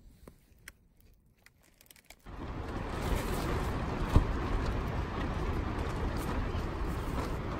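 Near silence with a few faint clicks for about two seconds. Then wind buffeting a fabric camping tent: a steady rushing noise with rustling of the tent walls and one sharp knock about four seconds in.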